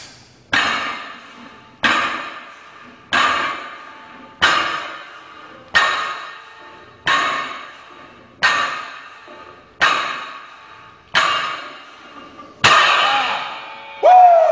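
Trap bar loaded with 330 lb of iron plates clanking down at the bottom of each deadlift rep: a metallic clank with a short ring, about one every 1.3 seconds, ten times. The last one, near the end, is the loudest.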